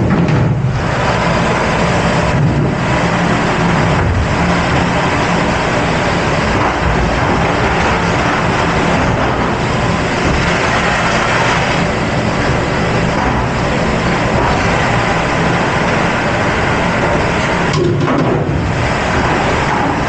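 Commercial rack conveyor dishwasher running: a loud, steady noise of pumps and water spray with a low drone underneath.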